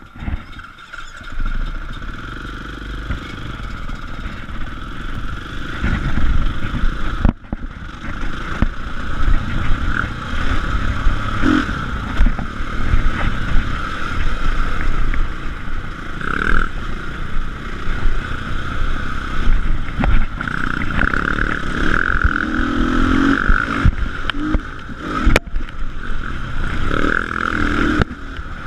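Dirt bike engine running under load on a rough trail, the throttle opening and closing so the engine note rises and falls, with rattles and scrapes from the bike over the bumps. The sound cuts out briefly twice, about seven seconds in and again near the end.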